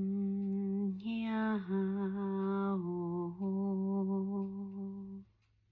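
A woman's voice toning wordless, long-held notes on a low pitch, stepping up briefly about a second in and dipping lower briefly around three seconds in, then stopping near the end. It is free vocal toning, letting tones come through as a breathwork practice.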